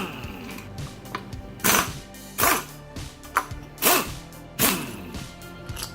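Background music with strong drum hits, several of them with falling pitch sweeps, about one every second.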